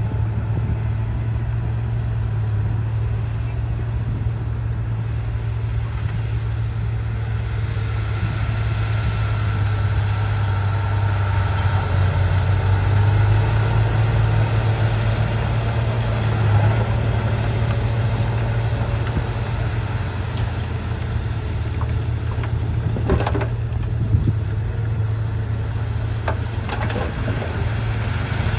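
Heavy construction machine's engine running steadily with a deep, even hum, with a few sharp metallic knocks about two-thirds of the way through and again near the end.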